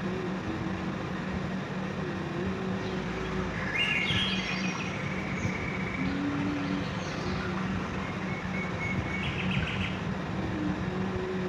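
A bird chirping in two short bursts, about four seconds in and again near the end, over a steady background noise and a low hum.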